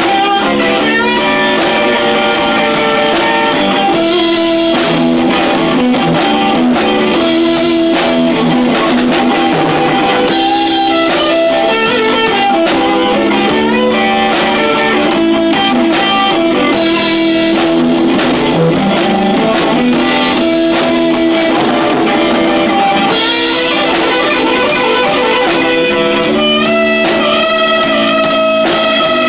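Rock band playing live and loud: electric guitar and bass guitar over a Pearl drum kit, with steady cymbal strokes that stop briefly near the end.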